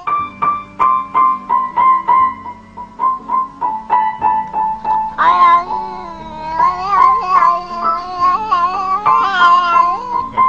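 Piano notes struck one after another, about three a second, then a cat yowling in long wavering meows over the piano from about five seconds in.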